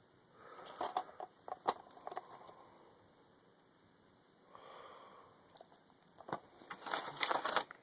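Plastic DVD cases being handled: rustling with a few sharp clicks in two spells, about half a second in and again about six seconds in, and a soft breath in between.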